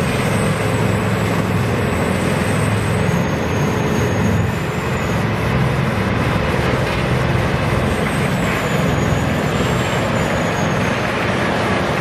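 A heavy forestry machine running steadily under power, with a deep, even engine drone and a thin, high-pitched whine that wavers in pitch.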